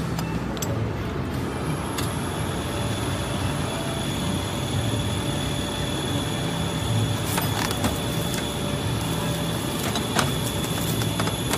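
Steady mechanical hum and hiss of a workshop, with a few light clicks and knocks of metal parts being handled on a small tablet press, about two seconds in, around seven and a half seconds, and near ten seconds.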